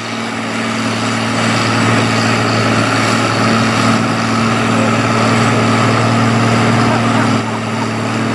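Farm tractor engine running loud and steady at a constant pitch, with a slight dip near the end.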